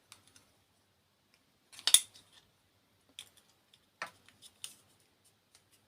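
Sharp clicks and light clatter of batteries and the plastic Xbox 360 controller battery holder being handled as the batteries are fitted: one loud click about two seconds in, then a few fainter ones.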